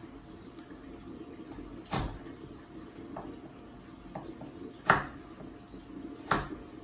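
Chef's knife chopping through carrot sticks onto a wooden cutting board: three sharp knocks, about two, five and six seconds in, with a few lighter taps between them, over a low steady hum.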